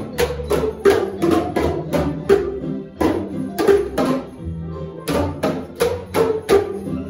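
Boomwhackers, tuned plastic percussion tubes, struck in a steady rhythm by a group, each hit sounding a short pitched note. About three hits a second, with a brief pause a little past the middle.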